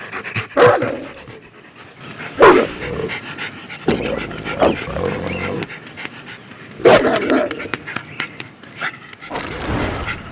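Dog vocal sound effects serving as dire wolf voices: a string of short canine calls and panting, with the loudest sudden calls about half a second, two and a half and seven seconds in.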